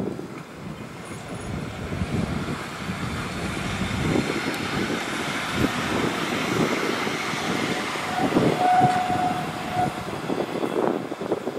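Articulated tram passing by, its wheels rumbling and knocking over the rails, growing louder towards the middle and easing off near the end. A short steady tone sounds for about two seconds, some eight seconds in.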